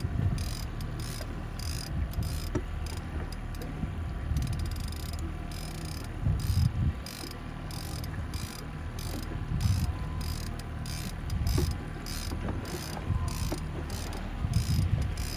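Trolling reel being cranked, its gears giving a rapid, regular clicking as a hooked fish is reeled in, with intermittent low rumbles of wind on the microphone.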